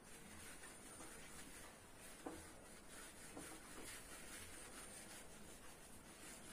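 Faint rubbing of a handheld duster wiping a whiteboard clean in repeated strokes, with a few light taps.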